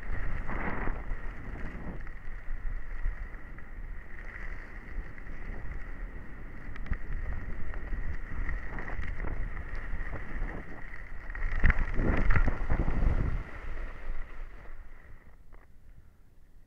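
Wind buffeting a helmet-mounted camera's microphone, with skis sliding on packed snow during a downhill run, under a steady high whine. It is loudest about twelve seconds in, then dies away as the skier slows near the end.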